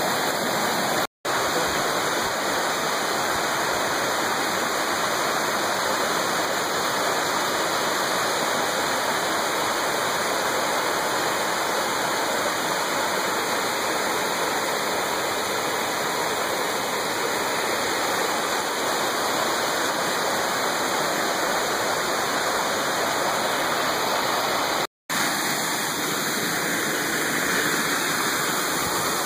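Mountain stream rushing and splashing over boulders and small cascades, a steady loud rush of water, broken twice by a split-second dropout where clips are joined.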